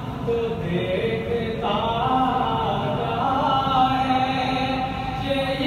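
A man reciting an Urdu naat solo and unaccompanied, drawing out long melodic notes that bend and slide, with brief breaks for breath.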